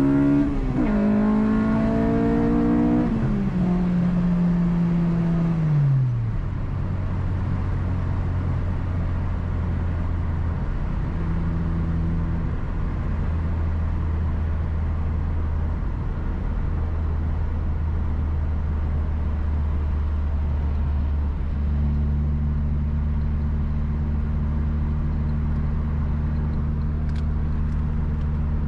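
Honda Civic's four-cylinder engine heard through a Megan Racing 4-2-1 tri-Y header with its cap removed. The engine note falls over the first six seconds as the revs drop, then holds a steady drone at constant speed, growing slightly fuller about 22 seconds in.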